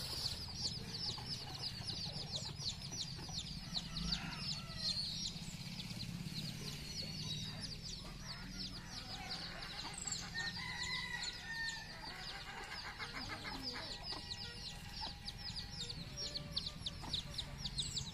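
Domestic hens clucking, over a fast run of short, high chirps, several a second, that weakens in the middle and picks up again near the end.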